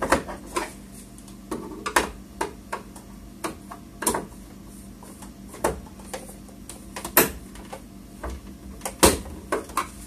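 Irregular small clicks and knocks of a Phillips screwdriver working screws out of the plastic back cover of an HP TouchSmart 320 all-in-one PC, with the odd louder knock of hands and tool against the case.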